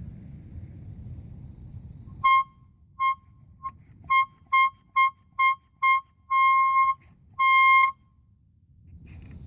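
Air horn sounding a single steady, high, loud tone in a string of short blasts, then two longer blasts near the end.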